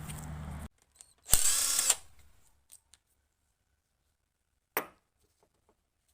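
Handheld power tool running in one short, loud burst about a second in, during work on a tractor engine. A low steady hum cuts off just after the start, and a single sharp knock comes near the end.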